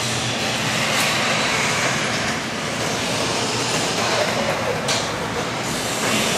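A car driving slowly up a driveway, its engine and tyres making a steady noise.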